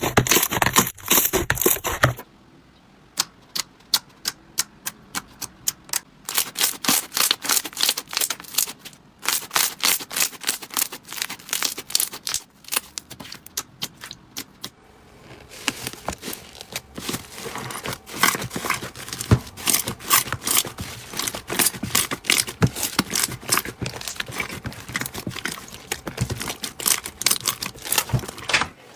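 Slime being squeezed and pressed by hand, giving quick runs of crackling clicks and pops. The texture changes abruptly about 2 seconds and 15 seconds in, as one slime gives way to another.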